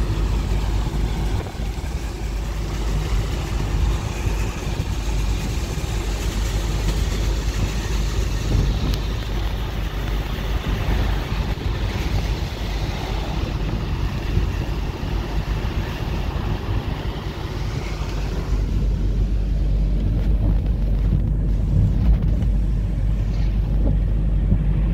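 Car driving on a wet road, heard from inside: a steady low road rumble under a hiss of tyres on the wet surface and wind. About 18 seconds in the hiss fades and the low rumble carries on.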